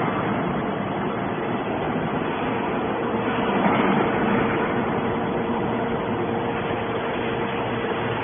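Hydraulic scrap baler running: a steady, loud mechanical din with a steady hum-like tone, growing a little louder about halfway through.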